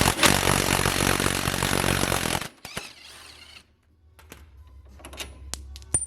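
A power tool running loudly for about two and a half seconds and then cutting off abruptly, followed by a few scattered clicks and taps of metal parts being handled.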